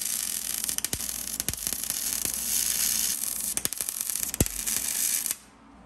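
MIG welder arc giving a steady crackling hiss as a bead is laid on a steel patch panel in a car frame rail. It cuts off suddenly near the end.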